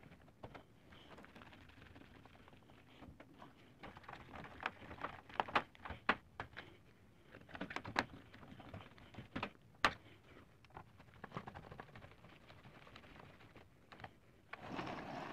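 Irregular plastic clicks and clacks from the keys of a Dell QuietKey SK 8000 keyboard, coming in scattered clusters with a few sharper snaps, and a short burst of rustling handling noise near the end.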